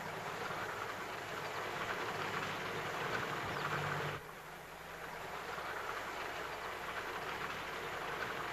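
A motor vehicle approaching on a dirt road: a steady rushing of engine and tyres with a low hum, growing louder. It drops off suddenly about four seconds in, then builds again as the car draws nearer.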